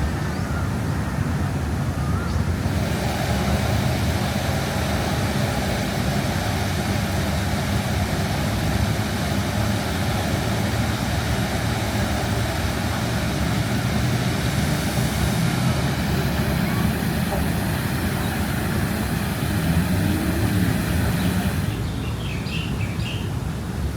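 Steady rumble of city road traffic around the park. A loud, even hiss sets in about three seconds in and stops a couple of seconds before the end, and a few faint bird chirps come near the end.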